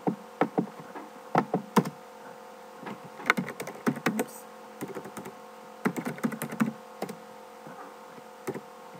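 Typing on a computer keyboard: irregular keystrokes in short clusters with pauses between them.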